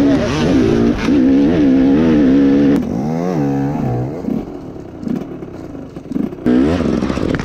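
Dirt bike engine heard from on board, revving up and down on the throttle, with one sharp rev rising and falling about three seconds in. After that it runs quieter and more unevenly, then revs loudly again briefly near the end.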